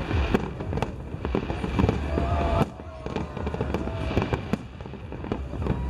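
Fireworks bursting overhead: a rapid run of sharp cracks and bangs over a low rumble, easing off briefly about two and a half seconds in before picking up again.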